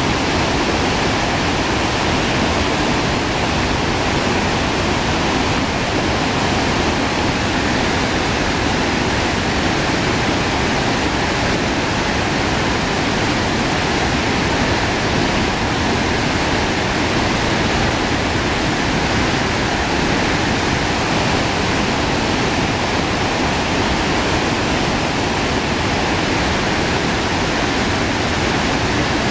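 Loud, steady rush of a wide river waterfall: high water pouring over the falls and churning into whitewater below.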